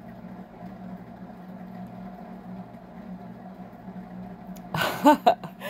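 A steady low machine hum that holds at one pitch, with a woman's voice starting near the end.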